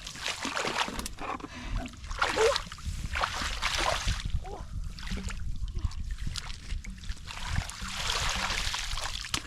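Water splashing and sloshing in irregular surges, strongest in two longer spells, over a low rumble.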